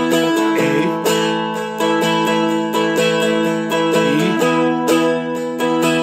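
Seagull Merlin, a four-string dulcimer-style instrument, strummed in a steady rhythm with its strings droning under the chords. Pitch slides come about half a second in and again about four seconds in.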